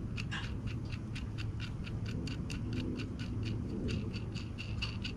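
A steady run of quick, even clicks, about five a second, over a low steady hum.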